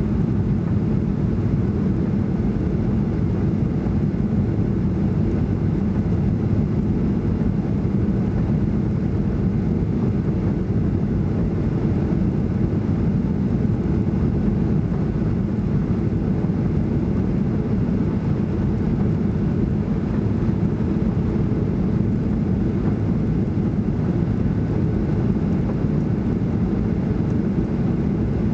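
Steady cabin roar of a Ryanair Boeing 737-800 in flight, from its CFM56 jet engines and the airflow over the fuselage. It is even and low, with no bumps or changes.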